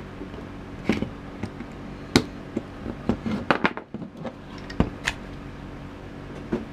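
Plastic case of a cordless-tool battery pack being split apart and handled on a workbench: a series of sharp clicks and knocks, irregularly spaced, over a steady low hum.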